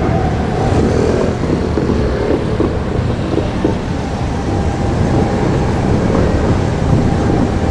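A vehicle running past: steady low noise with a few light knocks.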